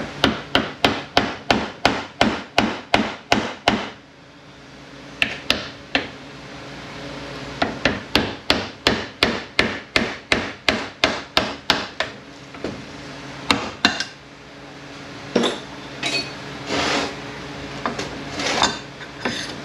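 Hammer blows on metal during a transfer case teardown: two fast runs of even taps, about four a second, each lasting about four seconds, with a few single strikes between them and some longer, rougher noises near the end.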